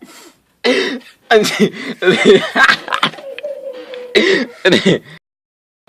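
People coughing and laughing loudly in several bursts, broken by sudden short silences.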